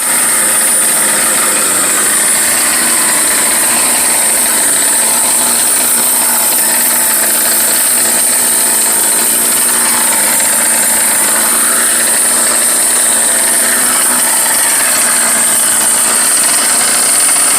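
Twin-engine goped's small two-stroke engines running steadily, with a high-pitched whine throughout.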